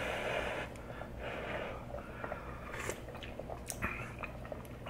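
Bean cooking broth slurped from a ladle: a slurp that ends less than a second in and a softer one about a second later. Then come small wet mouth clicks and lip smacks as the broth is tasted.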